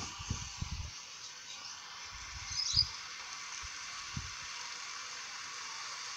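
Diced red onion sizzling in hot oil in a frying pan, a steady hiss. A wooden spatula stirring gives a few soft low thumps in the first three seconds.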